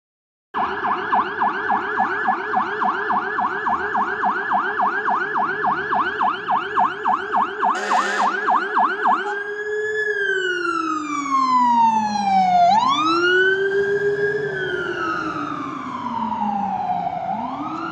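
A fire engine's electronic siren. It runs a fast yelp of about four to five sweeps a second, then switches about nine seconds in to a slow wail whose pitch falls over a few seconds and quickly rises again, twice.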